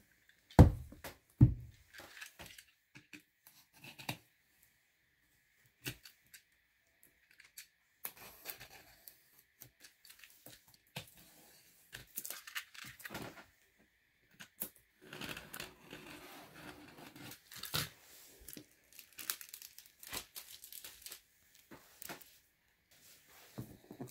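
Plastic shrink-wrap being cut, torn and crinkled off a cardboard laptop box, in scattered crackling bursts. Two dull thumps about a second in are the loudest sounds.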